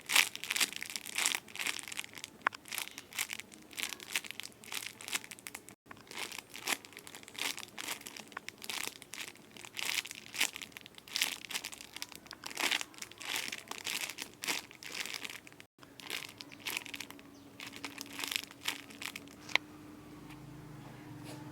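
Plastic packaging crinkling and rustling as squishy toys are handled and squeezed: dense, irregular crackles, cut off briefly twice. In the last few seconds the crackling thins out and a low steady hum comes in.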